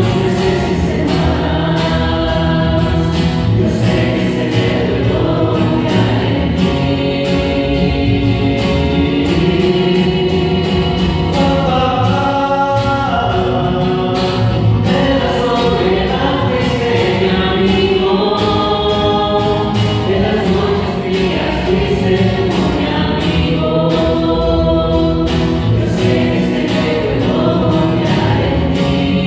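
A rondalla, a mixed choir of men and women, singing a Spanish-language hymn in harmony, accompanied by strummed guitar and upright bass.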